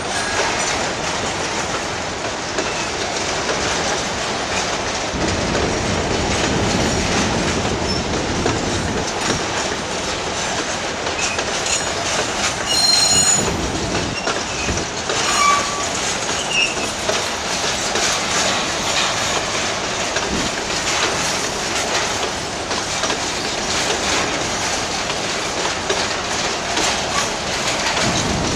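Freight train wagons rolling past close by: a steady rumble and clatter of steel wheels over rail joints. About halfway through there is a brief high wheel squeal, and a few shorter squeals follow.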